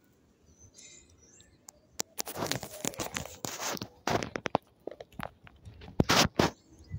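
A ripe Kadota fig being torn open by hand right against the phone's microphone: rustling and crackling with many sharp clicks and fingers rubbing on the phone. It starts about two seconds in and is loudest around four and six seconds in.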